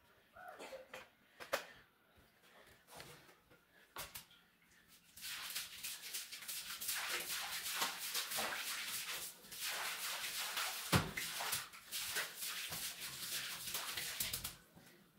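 A few light clicks and taps, then, about five seconds in, a broom sweeping a tiled floor in quick scratchy strokes, with one sharp knock partway through.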